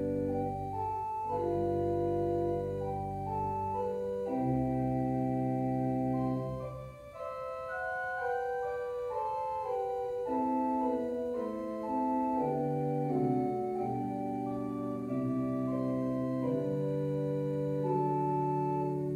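Organ playing a church prelude: slow, sustained chords held and changed every second or two, thinning out briefly about seven seconds in.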